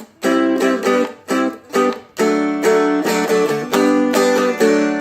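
Seagull Merlin M4 four-string dulcimer strummed in a steady rhythm, about two strums a second, moving between G and D chords.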